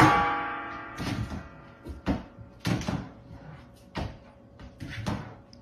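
Lid of a stainless steel kitchen trash can clanging as a golden retriever puppy paws at it: a ringing clang at the start, then about five more knocks roughly a second apart.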